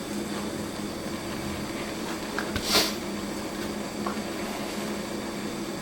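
Gas torch flame burning steadily with a loud hiss while it heats a copper tube. There is one short, sharper burst a little before the midpoint.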